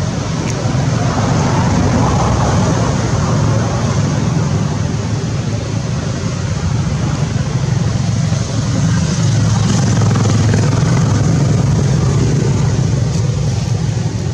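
Steady motor-vehicle noise: a continuous low rumble with a hiss above it.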